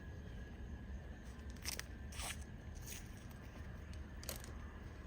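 Tape being pulled off the roll and pressed onto a plastic door handle trim piece for masking: a few short, sharp handling noises about two seconds in and once more past four seconds.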